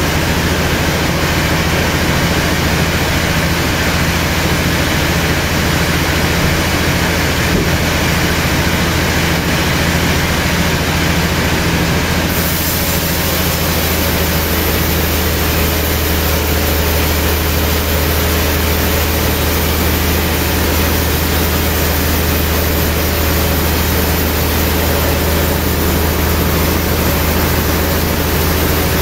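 Large vertical band sawmill running, a steady low hum under a loud, even rushing noise; about twelve seconds in the hiss turns brighter and stays that way.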